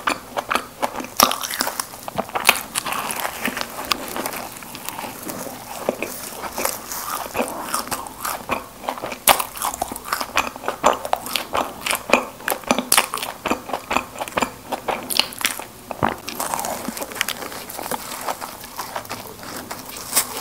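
Close-miked chewing of Krispy Kreme doughnuts: a dense, irregular run of mouth clicks and smacks.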